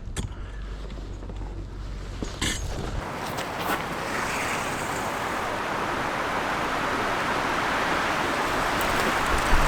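Strong wind blowing, a steady rush that builds slowly over several seconds, after a few light clicks near the start.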